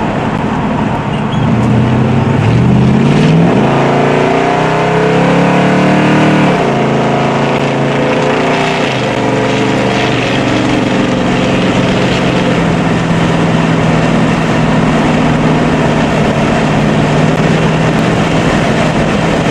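1973 Dodge Charger's 400 Magnum big-block V8 accelerating at full throttle, its pitch rising steeply a couple of seconds in. The pitch then falls sharply twice before settling into a steady high-rev run, heard from inside the car.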